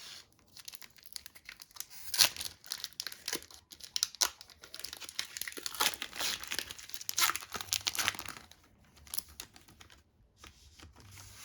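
Foil wrapper of a Pokémon trading card booster pack being torn open and crinkled: a quick run of sharp rips and crackles that goes quieter about nine seconds in.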